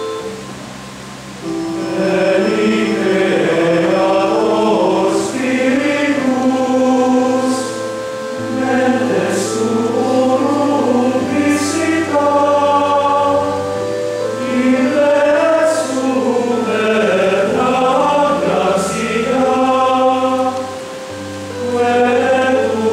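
A choir singing a sacred hymn over long held chords from a keyboard instrument, the chords changing every few seconds as the phrases go on.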